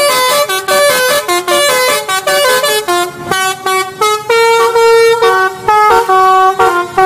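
Telolet bus horn playing a quick tune: short stepped notes from several horn tones sounding together, with a few longer held notes in the second half.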